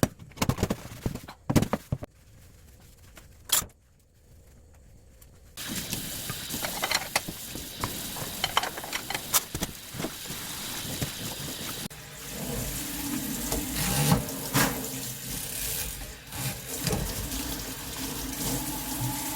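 Scattered clicks and knocks, then from about five seconds in a steady rush like water running from a tap, with knocks and clatter over it.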